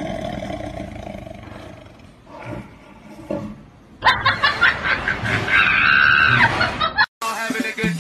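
Caged tiger roaring, the roar trailing off over the first two seconds. A louder, higher-pitched cry starts about four seconds in, lasts about three seconds and cuts off suddenly.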